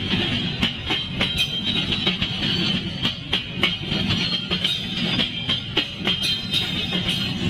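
KA 2720 Bramarja freight train's wagons rolling past. A steady rumble runs with many sharp wheel clacks over the rail joints in an uneven rhythm, and a high steady ring sits above it.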